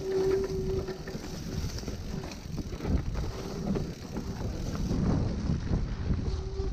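Mountain bike rolling fast downhill over dry leaves and dirt: tyre crunch, bike rattle and knocks over bumps, with wind on the microphone. A short steady whine comes and goes several times, plainest right at the start and near the end.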